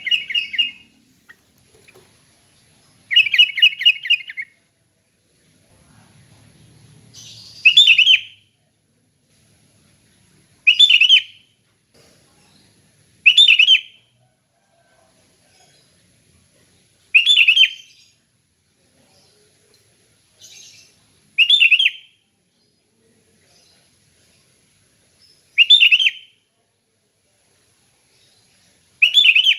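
Sooty-headed bulbul (kutilang) singing in clear, relaxed song: about nine short phrases, one every few seconds with pauses between. The first two phrases are longer and stuttering, and the later ones are brief bursts.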